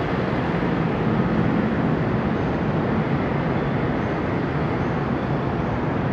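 Steady, continuous road-traffic noise with a low rumble.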